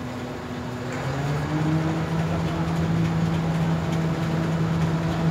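River ferry's engine running, revving up about a second in with a rising note, then running steadily louder as the ferry pulls away from the slipway.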